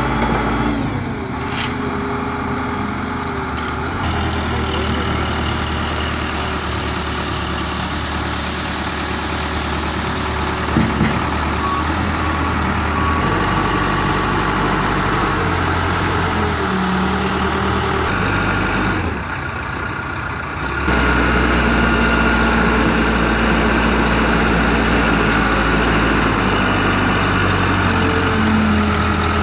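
Engine of heavy work equipment running steadily, its pitch shifting every few seconds, with a brief dip in level about twenty seconds in.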